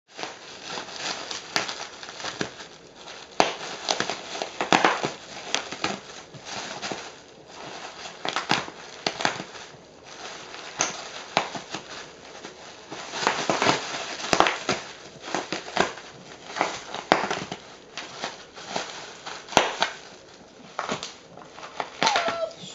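Plastic bubble wrap crinkling and rustling as a dog treads on it and noses into it, with many sharp pops of bursting bubbles at irregular intervals.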